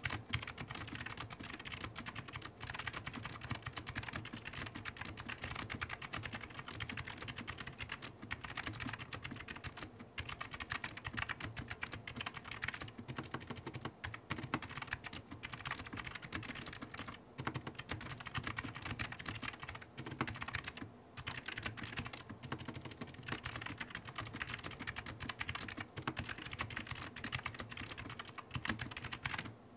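Fast continuous typing on the Zuoya GMK67 mechanical keyboard with PBT keycaps: a dense run of keystroke clacks with a few short pauses, stopping abruptly near the end.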